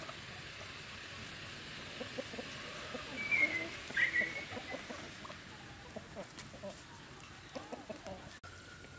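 Chickens clucking, with two brief louder squawks around the middle.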